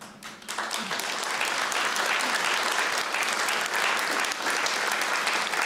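Audience applauding: many people clapping steadily, starting about half a second in.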